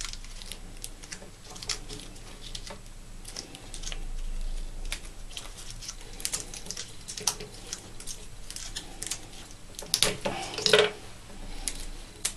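Gloved hands wrapping PTFE teflon tape around the thread of a small plastic fitting: scattered light clicks, taps and rustles, with a louder run of handling noise about ten seconds in.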